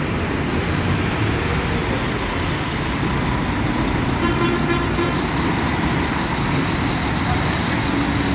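Heavy road traffic with a double-decker coach's engine running close by as it moves past. About four seconds in, a vehicle horn sounds briefly for about a second.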